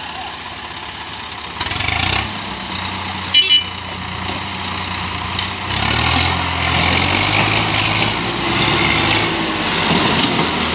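Diesel tractor engines working hard under load as one tractor tows another loaded with sugarcane, the engine note coming in about two seconds in and growing louder from about six seconds. A brief high toot sounds about three and a half seconds in.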